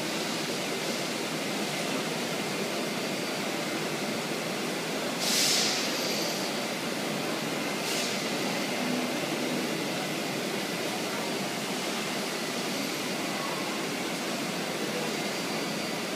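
PADE CNC router milling a curved wooden shell, heard as a steady machine noise, with a short sharp hiss about five seconds in and a brief click about eight seconds in.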